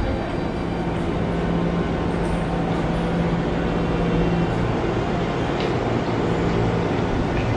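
Steady hum of a stationary Shinano Railway SR1 series electric train standing at the platform with its doors open, carrying a low steady tone that fades about two thirds of the way through.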